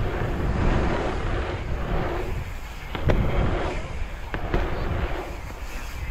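Wind buffeting the microphone over the hum of bicycle tyres rolling on an asphalt pumptrack, rising and falling with the rollers, with two sharp clicks about three and four and a half seconds in.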